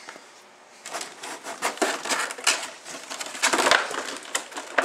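Clear plastic blister packaging crinkling and crackling as it is flexed and handled: a dense, irregular run of sharp crackles that starts about a second in.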